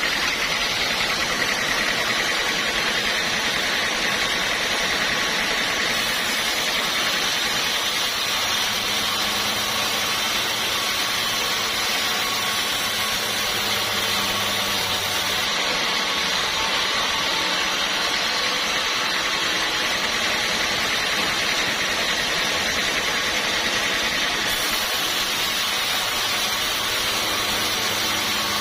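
Sawmill saw running steadily: a constant noisy whir with a low hum underneath.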